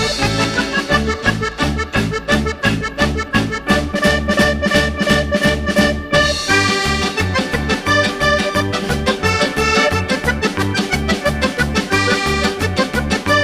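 Upbeat background music with a steady bass beat.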